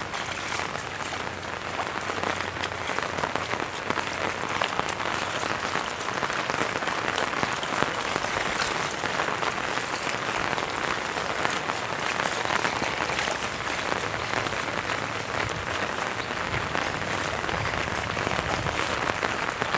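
Steady heavy rain falling and pattering on surfaces, a dense even hiss made of many small drop impacts.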